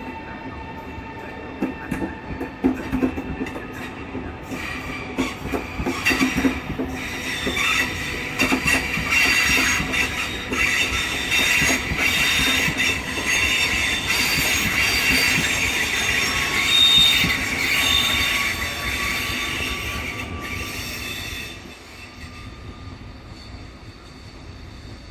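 A train moving past, its wheels clicking over the rail joints and squealing on the track. It grows louder and then drops away suddenly near the end.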